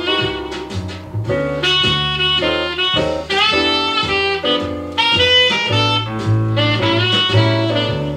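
Instrumental music played from a vinyl record through a SAEC C-1 phono cartridge whose broken stylus has been glued back on, the cartridge tracking and sounding again after the repair. A melody line runs over changing bass notes.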